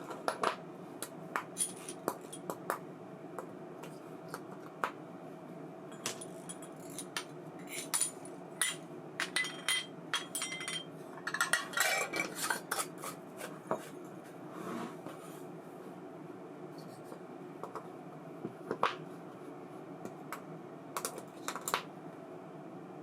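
Small metal parts and tools of an ABU Ambassadeur 2500C baitcasting reel clicking and clinking irregularly as the reel is handled on the bench, with a busier flurry about halfway through, over a steady low hum.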